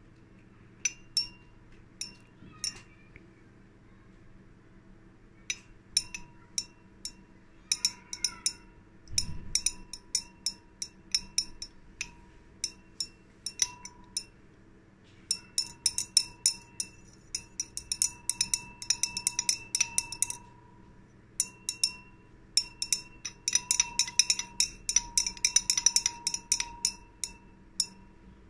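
Stirring rod clinking against the wall of a glass beaker while dissolving potassium humate in water, each clink with a brief glassy ring. A few scattered clinks at first, then rapid runs of clinks through the second half.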